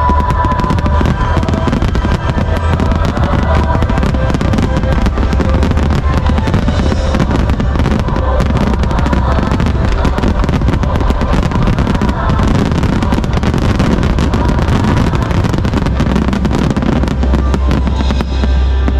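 Fireworks grand-finale barrage: many shells bursting in quick succession, a dense, unbroken run of overlapping booms and crackles, with music playing along.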